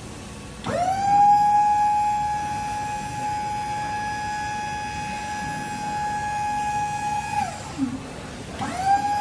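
Electric stacker's hydraulic lift pump motor whining at a steady high pitch as the forks are raised. It spins up quickly under a second in, runs for about seven seconds, winds down, then runs again briefly near the end.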